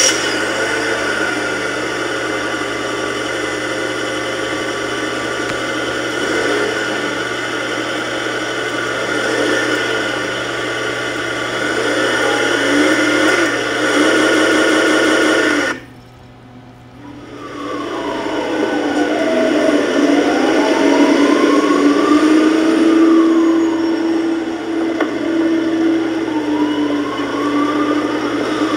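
Recorded traffic noise played for sound conditioning: a steady vehicle engine sound cuts off suddenly about halfway through. Then a siren wails, its pitch rising and falling slowly about every five seconds.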